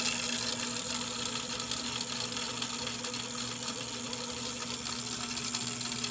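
Motorized line-spooling machine running with a steady whir, winding 100-pound monofilament onto a Shimano Tiagra 50 big-game reel.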